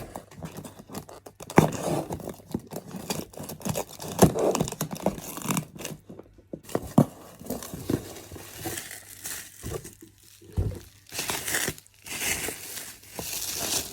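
A mail package being torn open by hand: irregular ripping and crinkling of the packaging, with a few longer, louder tears near the end.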